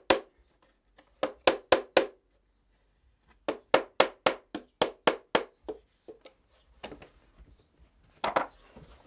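Small hammer tapping on the nails of a wooden trug basket in quick runs of blows, about four a second, with short pauses between runs and fainter taps near the end. It is knocking down any proud nail ends so nothing is left to catch clothing.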